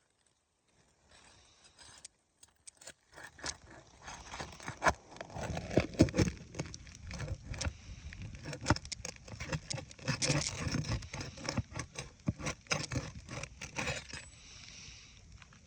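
Irregular scraping, crackling and clicking of asphalt roof shingles being handled and worked loose, a rapid clatter of small hits that thins out near the end.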